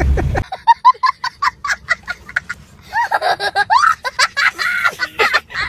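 A young child laughing hard: a quick run of short laughs, then a longer laugh that swoops up and down in pitch from about three seconds in.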